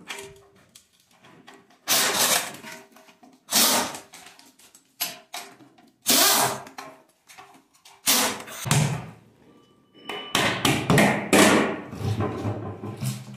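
Metal clanks and thunks from tools and parts of a Toyota 1FZ straight-six engine being dismantled: a string of separate knocks, then a longer clatter near the end.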